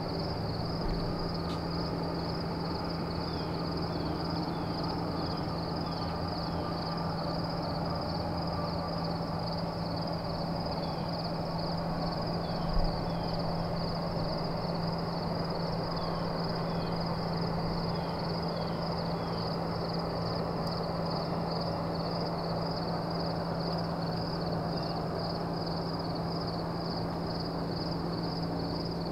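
Outdoor ambience: a steady, rapidly pulsing high-pitched insect chorus, with a few short runs of falling bird chirps and a low steady hum underneath. A single soft thump comes about halfway through.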